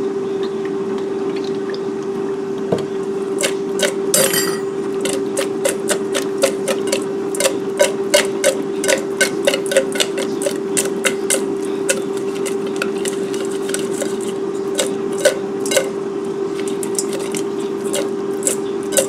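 Raw shrimp tossed in a stainless steel mixing bowl, slapping and clicking against the metal several times a second from a few seconds in. Under it runs a steady hum from the Cosori air fryer preheating.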